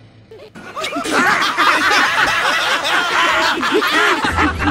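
A group of cartoon characters laughing together. Many voices overlap, growing into loud, continuous laughter about a second in.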